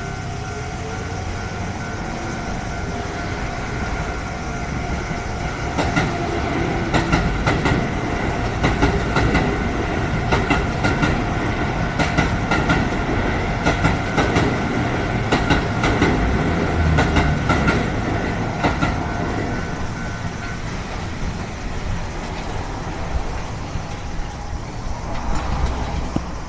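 A Keio Line electric train passes over a level crossing, its wheels clacking over the rail joints from about six seconds in to about nineteen. The crossing warning bell rings steadily throughout and stops about twenty seconds in.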